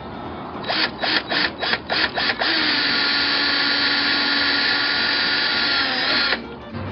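Power drill pulsed in about seven short bursts, then run steadily for about four seconds before cutting off suddenly, while the grille cover's mounting screws are put in.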